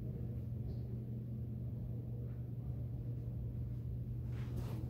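Steady low electrical hum under quiet room tone, with a few faint scuffs.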